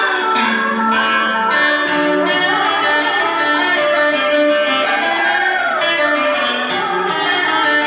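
Loud instrumental music led by a plucked, electric-sounding guitar, with sustained notes that bend in pitch over a dense accompaniment.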